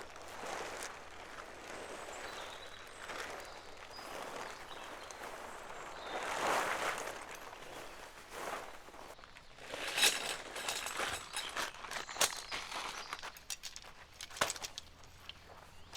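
Rustling and scuffing outdoors, then from about ten seconds in a string of sharp clicks and knocks, as of objects being handled.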